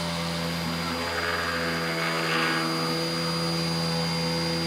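CNC machine's 48 V, 400 W DC spindle motor running steadily, held near 5,000 RPM by its PWM speed controller, with a 1/8-inch bit milling a pocket in aspen. A rougher hiss swells about a second in and fades near three seconds.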